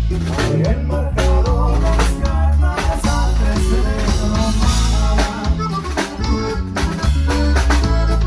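A band playing with a drum kit and a strong bass line.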